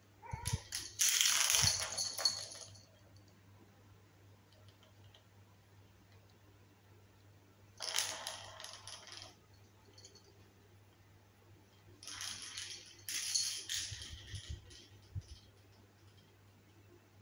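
A small hard plastic stick clattering and rolling across a ceramic tile floor as a kitten bats it, in three bursts of rattling, with a few low thumps mixed in.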